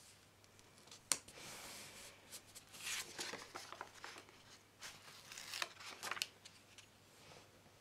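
A paper sticker being laid onto a planner page and rubbed flat by fingers: a sharp click about a second in, then bursts of paper rustling and rubbing.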